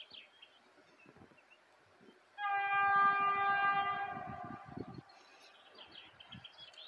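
Horn of an EU07 electric locomotive, not yet in sight, sounding one long steady blast that starts suddenly about two and a half seconds in and fades out over about two seconds: the Polish Rp1 'Attention' warning signal.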